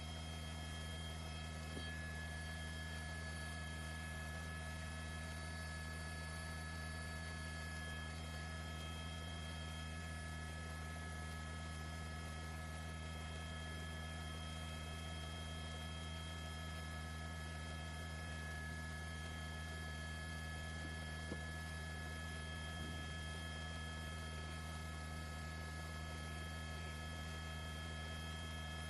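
A steady, unchanging hum with several constant high tones above it.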